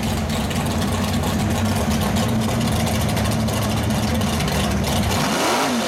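Drag race car's engine idling loudly and steadily as the car rolls up to the start line; just before the end the pitch rises and falls briefly.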